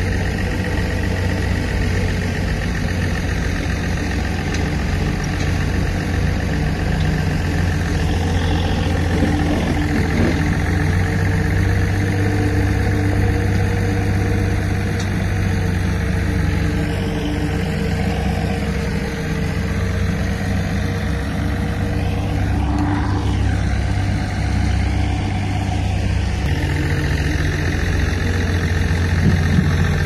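Diesel engine of a D60 bulldozer running steadily, its tone changing slightly about four seconds before the end.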